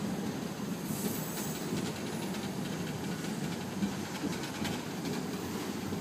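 Freight cars rolling across a railroad bridge overhead: a steady low rumble of steel wheels on the rails and bridge, with bursts of clicking from the wheels about a second in and again around four to five seconds in.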